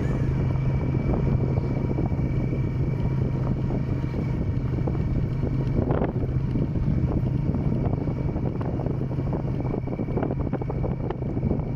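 Small motorcycle engine running at a steady cruising speed, a constant low drone, with wind buffeting the microphone.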